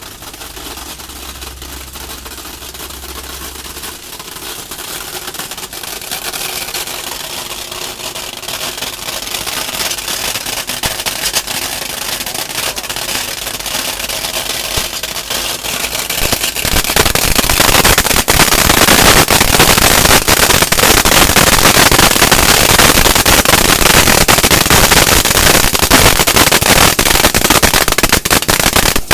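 Plastic colour sorting machine at work on small plastic pieces: a dense, rapid crackle of countless clicks that builds steadily and becomes much louder about two-thirds of the way through.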